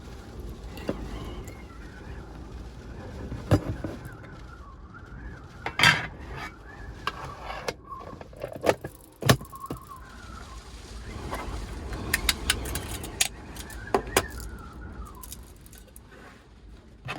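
Storm wind buffeting a kei van as a low rumble, with a faint wavering whistle rising and falling. Several sharp clicks and knocks of things being handled inside come over it, the loudest about three and a half, six and nine seconds in.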